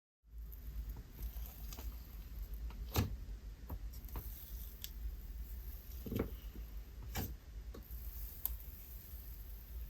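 Thick, icy slime being squeezed and stretched by hand, with scattered soft clicks and bubble pops.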